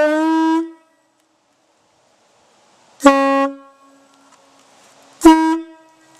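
Homemade single-bell PVC train horn with a plastic diaphragm, blown with compressed air: a long blast ending about half a second in, then two short toots about two seconds apart.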